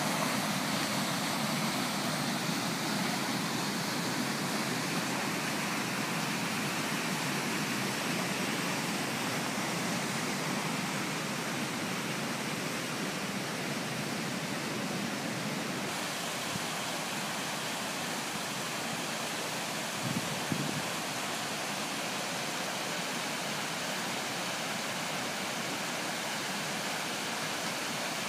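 Waterfall cascading, a steady rush of falling water.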